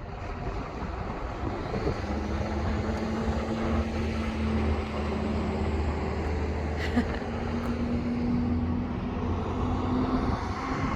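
A vehicle engine running steadily, a low rumble with a hum that holds from about two seconds in until near the end, over outdoor street noise.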